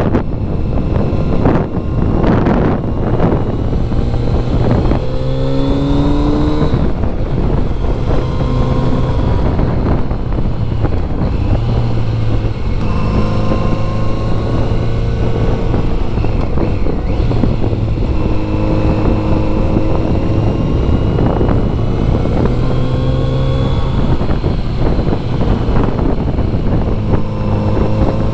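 Kawasaki Z900RS inline-four engine heard from the rider's seat while under way, its pitch rising in several stretches as it pulls up through the revs. Heavy wind rush over the microphone throughout, buffeting hard in the first few seconds.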